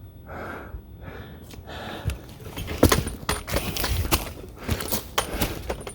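Footsteps of a hiker walking a mountain trail: irregular crunching steps and small clicks, growing more frequent and sharper about two seconds in.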